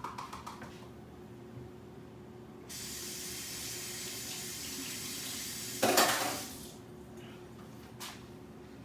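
Kitchen faucet running steadily for about three seconds, ending in a brief louder splash of water.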